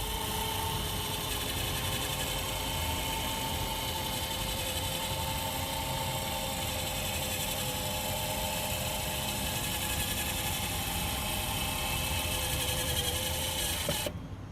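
Small electric motor in a remote-controlled spotlight whirring steadily as it turns the lamp head, stopping near the end.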